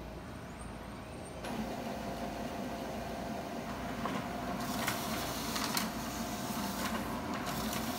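Xerox WorkCentre 3655 laser copier running a two-sided copy job. A low hum steps up to a louder steady machine running sound about one and a half seconds in. From about four and a half seconds a hiss and several sharp clicks join it as a printed sheet is fed out into the output tray.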